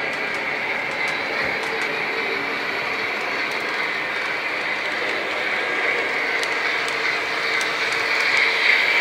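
Lionel O gauge model trains running on the layout's track: a steady rolling and motor noise with a few faint clicks, swelling slightly near the end.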